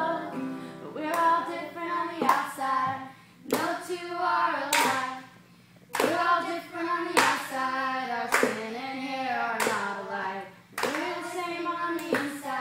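Children singing a song together, clapping their hands in a steady beat about once every second and a quarter, starting about two seconds in.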